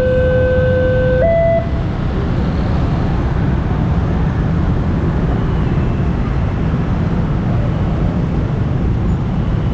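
Railway level-crossing warning siren alternating slowly between a low and a higher tone, each held about a second and a half, cutting off about a second and a half in. A steady low rumble follows.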